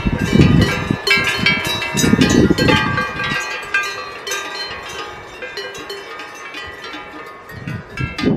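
Cowbells on a grazing herd of cattle clanking irregularly, many bells overlapping, with low rumbles in the first three seconds; the clanking grows fainter toward the end.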